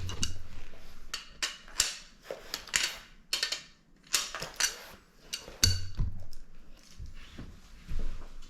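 Steel tools clicking, clinking and scraping against a bicycle crank in a series of irregular sharp strokes, with a few dull knocks, as a crank arm is worked off with a wrench.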